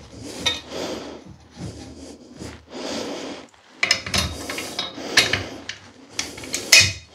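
Screw-in end pieces being twisted into the end of a metal parallette bar: repeated rubbing, scraping strokes, with sharper clicks and knocks in the second half.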